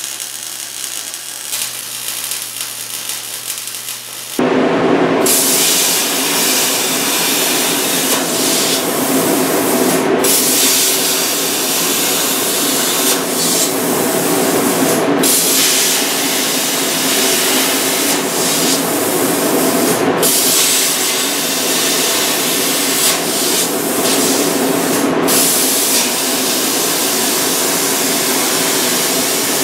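MIG welder arc crackling for about four seconds. Then a CNC plasma cutter cuts steel plate: a loud, steady hiss over a hum, broken by short gaps about every five seconds.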